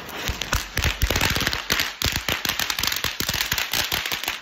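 A kothi (ground flower-pot firework fountain) spraying sparks and going off in a dense, irregular string of sharp crackling pops, several a second. It bursts like a firecracker rather than burning as a quiet fountain.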